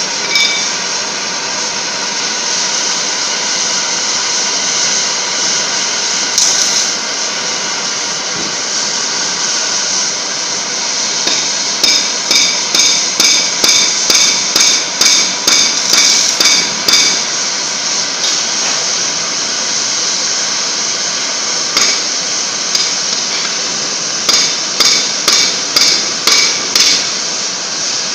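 Three-torch oxy-fuel flame cutting head of a CNC gantry cutter hissing steadily as it bevel-cuts thick steel plate. Sharp metallic ticks about twice a second come in two runs, one about halfway through and one near the end.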